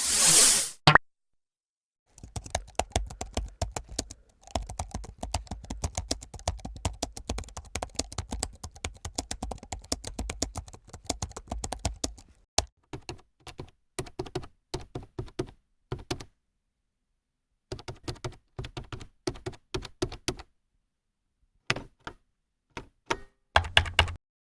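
A short whoosh in the first second, then computer keyboard typing: a fast, dense run of keystrokes for about ten seconds, thinning to slower, intermittent bursts of keys with pauses between them.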